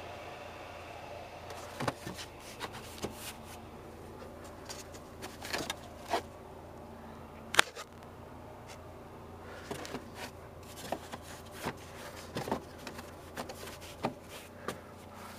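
Handling noise from a handheld camera: scattered clicks and knocks as it is moved about, over a faint steady hum.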